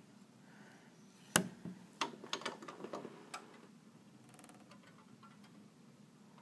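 One loud, sharp crack about a second and a half in, then a quick run of lighter clicks and knocks over the next two seconds, and a brief rattle.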